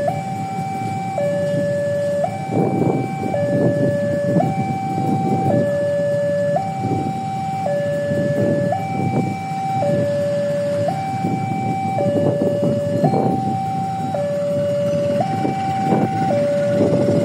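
Railway level-crossing warning alarm sounding a steady hi-lo two-tone signal, switching pitch about once a second. Under it is the rumble of an approaching diesel-hauled passenger train.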